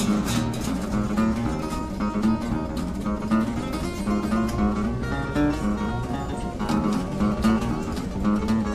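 Two acoustic guitars playing together, with steady strummed and picked chords over a repeating bass line.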